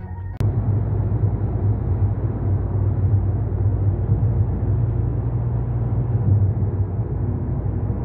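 Steady low rumble of a car driving at speed, heard inside the cabin: engine and road noise. It begins abruptly just under half a second in.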